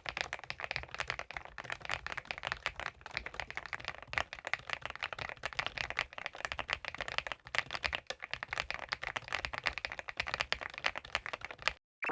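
Typing on a CIDOO ABM066 gasket-mounted mechanical keyboard: a dense, steady run of keystrokes that stops just before the end, followed by a brief falling swish.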